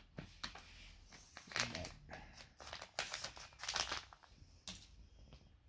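Crinkling and rustling of handled plastic, with small clicks and taps, in several short bursts about one and a half, three and nearly four seconds in.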